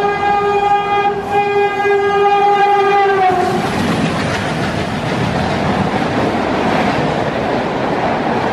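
Twin WDM-3A diesel locomotives approaching at about 110 km/h with the horn held in one long, steady blast, its pitch dropping as they pass about three seconds in. Then the steady rushing noise of the LHB coaches going past at speed.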